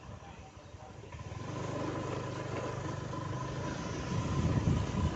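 Motor scooter's engine running under way, low for about the first second, then picking up and running steadily, with a thin steady whine alongside.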